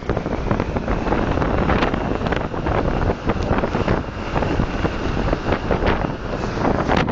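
Strong wind buffeting the microphone, with the constant wash of storm-driven waves breaking on the shore beneath it.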